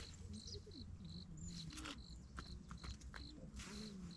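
An insect chirping in a steady rhythm, about two short high chirps a second. Under it are faint distant voices and a few sharp clicks.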